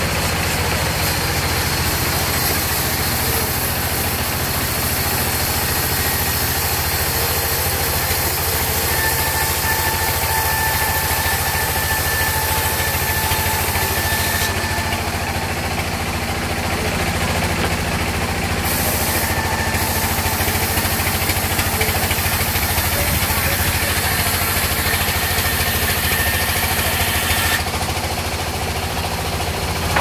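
Sawmill band saw, belt-driven, running steadily as a wooden slab is fed through the blade, with a constant low drone. A thin whine rises above it for a few seconds in the middle.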